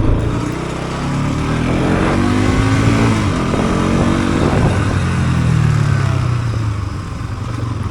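Bajaj Pulsar NS200's single-cylinder engine accelerating hard through the gears. Its pitch rises, drops at a gear change about three seconds in, rises again, then falls away as the throttle eases near the end.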